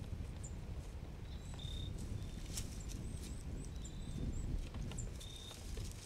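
Wind rumbling on the microphone, with deer hooves stepping and rustling in dry leaves as they feed. A small bird's short high chirps repeat over it.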